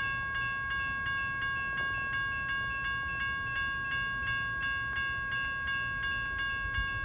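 Railroad grade-crossing warning bell ringing evenly, about three strikes a second, over a low rumble.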